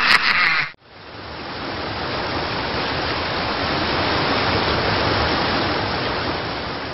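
A loud pulsing noise cuts off abruptly within the first second. A steady rushing noise, like wind or running water, then fades in, swells and fades away near the end.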